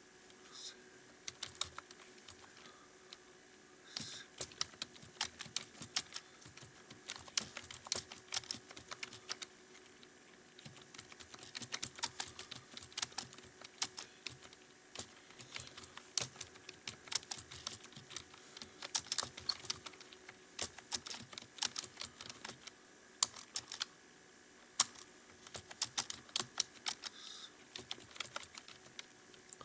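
Computer keyboard being typed on quickly and steadily, a dense run of key clicks with brief pauses now and then, as in a timed typing speed test.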